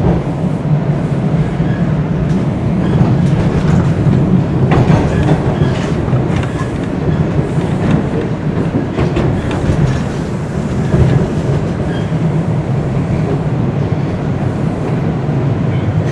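Bombardier Toronto Rocket subway train running at speed, heard from inside the car: a steady rumble of motors and wheels on the rails, with a few sharp clicks and knocks from the track.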